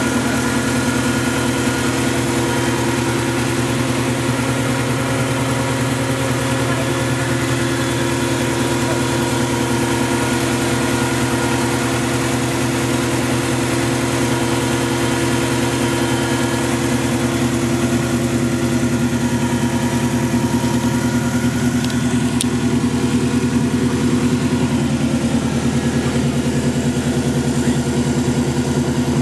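Turbocharged Subaru EJ flat-four engine idling steadily.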